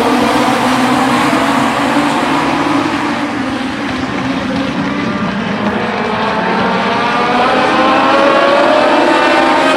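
A pack of Legends race cars, each with a four-cylinder Yamaha motorcycle engine, running hard past on an oval track, many engines at once. The sound eases a little midway as the field moves off, then builds again near the end with the pitch climbing as they accelerate.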